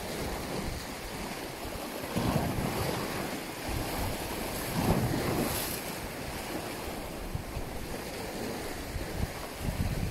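Wind buffeting the microphone over the wash of sea waves, swelling in gusts about two and five seconds in.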